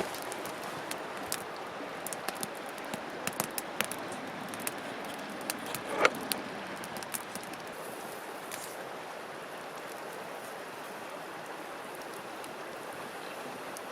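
Wood fire crackling, with many sharp pops over a steady hiss and one louder pop about six seconds in; the popping thins out in the second half.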